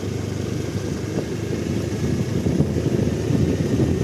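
A motorcycle riding along at a steady pace, its engine a low rumble mixed with wind buffeting on the microphone.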